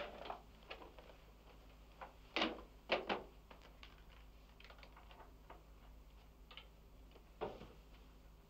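Light knocks and clicks of furniture and objects being handled and set down, with a few louder knocks two and a half to three seconds in and one more near the end.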